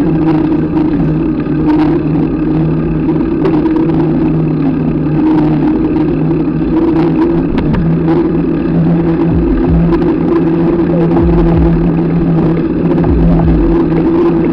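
Ride noise from a camera mounted by the front wheel of a mountain bike: a steady hum from a knobby Kenda tyre rolling on asphalt, with scattered clicks and rattles and a few low thumps in the second half.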